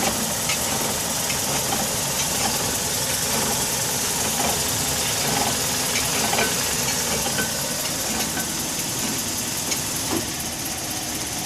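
2004 Nissan Sentra running with the gas pressed, with a clinking knock that recurs at irregular intervals every second or two. The owners think it comes from an axle after the engine and transmission were replaced, but are not sure.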